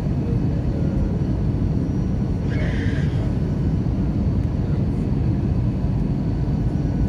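Steady rumble of an airliner's engines and airflow heard inside the passenger cabin. A brief higher hiss rises over it about two and a half seconds in and lasts under a second.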